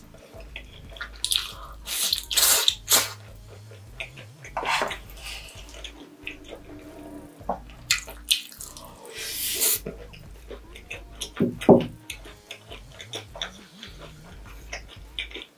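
Close-miked wet eating sounds: slurping and chewing of spicy stir-fried noodles and cheesy corn, in short bursts every second or two. A sharp knock about twelve seconds in is the loudest sound.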